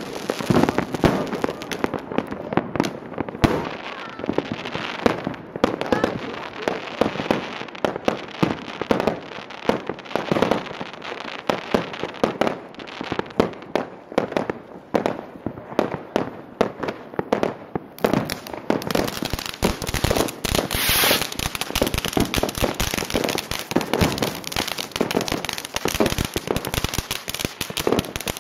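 Dense, irregular run of sharp pops and crackles, continuous throughout.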